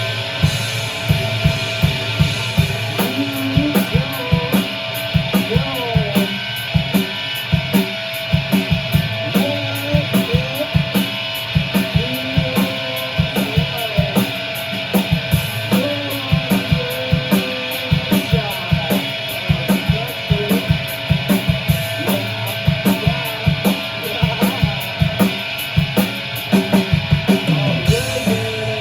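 Rock band playing a song live: drum kit keeping a steady beat under guitar, the whole band loud and even throughout.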